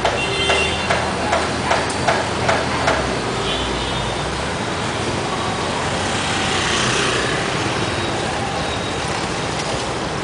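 Slow city traffic with engines idling and creeping along, among them the Bentley Continental Supersports' twin-turbo W12 pulling away at low speed. A low steady rumble fades out after about four seconds. About eight evenly spaced knocks come in the first three seconds, and a rushing hiss swells past about six to seven seconds in.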